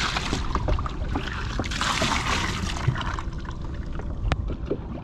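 Water splashing and trickling around a kayak in two surges, over a low wind rumble on the microphone, with one sharp click about four seconds in.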